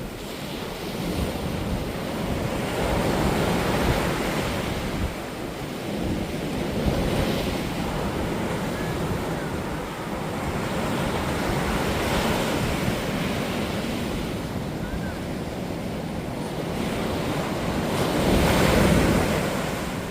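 High surf breaking on a beach: a continuous wash of sea noise that swells as each wave comes in, every few seconds, the loudest surge near the end.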